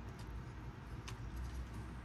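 A couple of faint plastic clicks as action-figure parts are handled and posed, over a low steady hum.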